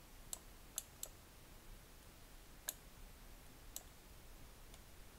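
About six faint, sharp clicks from a computer mouse and keyboard, spaced irregularly over near-silent room tone.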